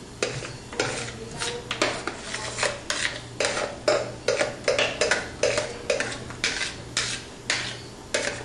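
A utensil clinking and scraping against ceramic bowls as beaten egg whites are scraped out of one bowl into the cake batter: a regular series of short knocks, about three a second.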